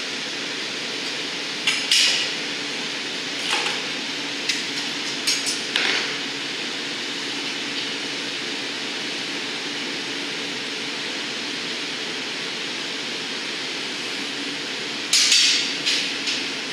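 Steady rushing noise from the hot shop's gas-fired glory hole and furnace. Sharp metal and glass clinks and clanks from blowpipes and steel tools sound about 2 s in, several more between 3.5 and 6 s, and a quick cluster near the end.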